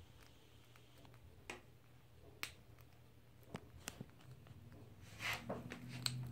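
Squirrel gnawing on a thin wooden stick on a wooden tabletop: a few sharp, irregular clicks and taps of teeth and wood, with a brief scratchy rustle near the end, over a steady low hum.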